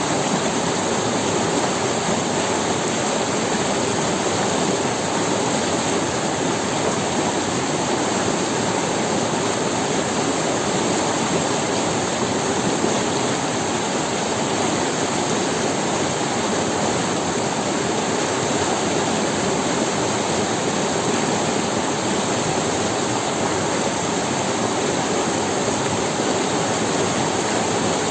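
River water rushing over stones in a steady, even roar with no let-up.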